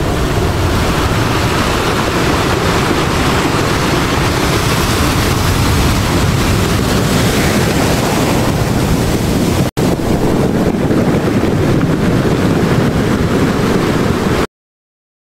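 Ocean surf breaking on a beach, a steady rushing wash with a deep rumble, like wind on a microphone. It drops out for a split second near ten seconds in and cuts off just before the end.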